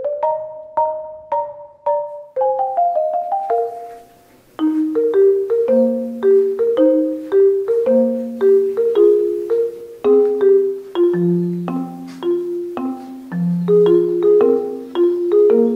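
Background music: a tune of short struck mallet-percussion notes, marimba-like, with a brief gap about four seconds in before it carries on.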